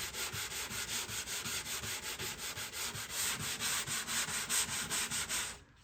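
220-grit sandpaper rubbed by hand in quick, even back-and-forth strokes over a cedar guitar top, about five or six strokes a second, stopping suddenly near the end. The shellac coat is mostly sanded off, so the paper clogs little.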